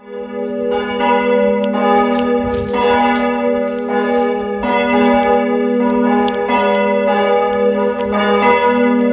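Church bells in a tower ringing together, with repeated clapper strikes at uneven intervals over a dense, overlapping hum of sustained tones. The sound cuts in suddenly at the start.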